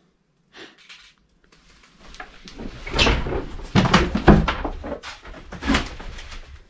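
Footsteps and knocks on an old floor in a small, bare room: an irregular run of knocks and clatter, loudest about three to four seconds in and again near six seconds.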